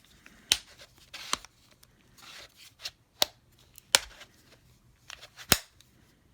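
Handling noise from a small cordless screwdriver: about five sharp clicks, the loudest about half a second, four seconds and five and a half seconds in, mixed with brief rustling and scraping.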